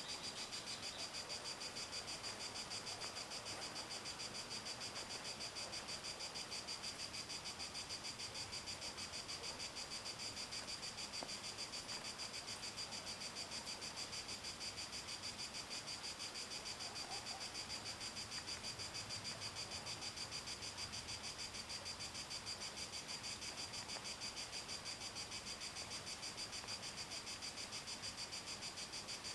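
Crickets chirping: a high-pitched, fast and even pulsing trill that carries on without a break.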